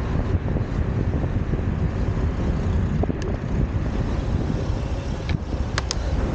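Wind buffeting the microphone of a bicycle-mounted camera while riding, over the steady rumble of city car traffic. A few short sharp ticks come about three seconds in and near the end.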